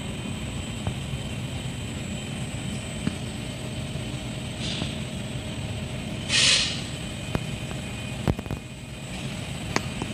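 Steady industrial background: machinery running with a low rumble and a thin steady high whine. A short hiss of air comes about six seconds in, with a weaker one before it, and a few sharp clicks near the end.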